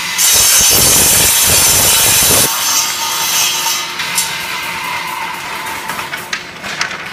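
Circular saw cutting through the ends of a rack of wooden sticks: a loud cut of about two seconds, after which the saw runs on without load. A few light wooden clatters near the end as the cut sticks are handled.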